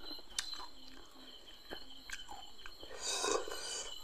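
Close mouth sounds of someone chewing a green chili: wet clicks and lip smacks, with a louder short breathy noise about three seconds in. Crickets chirp steadily in the background.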